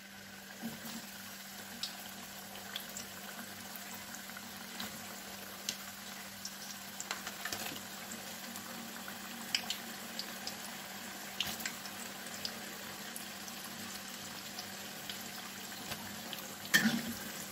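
Pieces of cassava-and-cornstarch dough deep-frying in hot oil in a wok: a steady sizzle dotted with small crackling pops that grows a little busier as more pieces go in. A brief louder clatter near the end.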